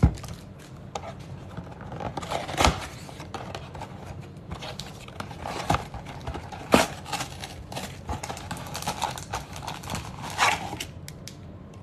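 A cardboard trading-card blaster box being handled and opened by hand: scattered sharp taps and clicks of the flaps and card stock over a low rustling.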